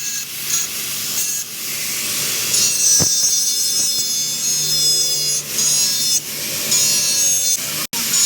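A power tool grinds a steel spear head: a loud, steady, high-pitched hiss with several whining tones over it. It eases off briefly a few times, around the middle and toward the end.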